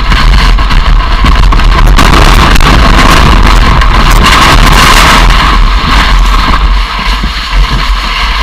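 Snowmobile engine running loud and steady while riding through deep snow.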